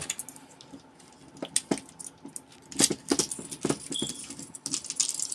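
Light clicks and clinks of a padlock and plastic circuit breaker lockout devices being handled. Scattered sharp taps are sparse at first and come more often toward the end.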